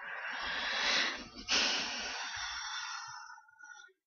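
Two long breaths into a close microphone: the first swells over about a second, the second starts abruptly and fades out over about two seconds.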